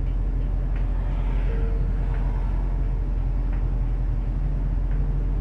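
Steady low rumble of vehicle engines and road traffic, with a constant low hum underneath.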